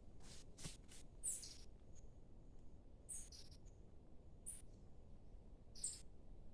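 Faint, short, high-pitched chirps of birds in a forest, coming in irregular little clusters, about ten in all, with a brief thin whistle in between.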